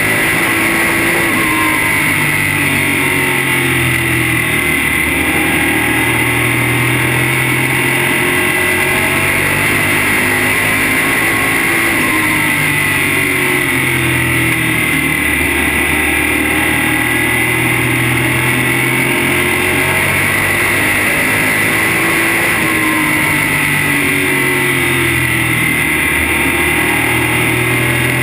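A modified race car's engine running hard, heard from inside the cockpit at speed. Its pitch falls off and climbs back up in a repeating cycle about every eleven or twelve seconds.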